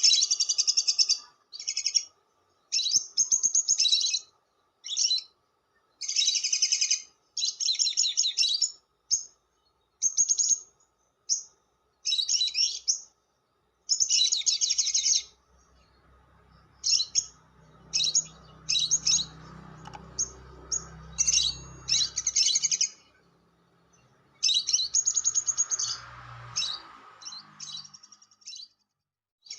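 Lovebird giving its long, rapid, high-pitched rattling chatter (the 'ngekek') in repeated bursts, each lasting from a fraction of a second to about a second and a half.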